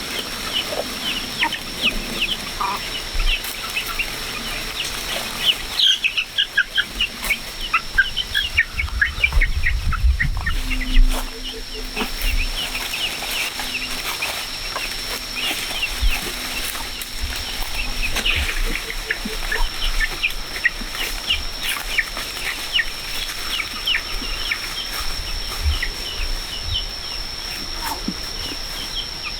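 Many short, high-pitched peeps and squeaks from small farm animals, over a steady high-pitched tone.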